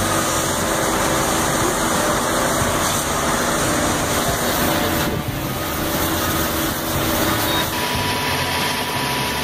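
Heavy diesel-hydraulic foundation machinery, a Bauer MC 128 crane working a trench cutter, running steadily.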